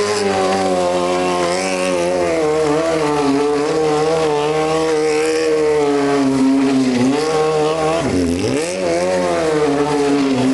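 Sport motorcycle engine held at high revs while the rear tyre spins on the asphalt in a smoking burnout circle. The revs drop sharply and climb back once about two-thirds of the way through.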